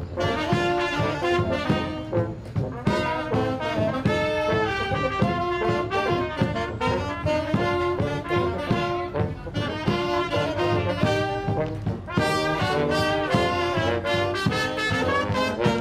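Brass band playing a tune: saxophones, tuba and trumpet over a bass drum with cymbal keeping a steady beat.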